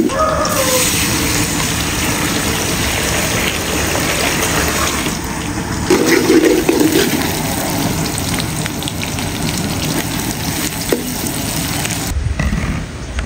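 Sliced onions sizzling in hot oil and ghee in a large aluminium pot, stirred now and then with a perforated metal skimmer. The onions are being fried slowly towards golden brown.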